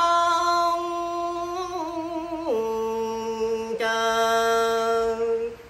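A man singing a Vietnamese tân cổ (cải lương) song, holding long sustained notes. One note is held for about two and a half seconds, then the voice drops to a lower note and holds it until just before the end.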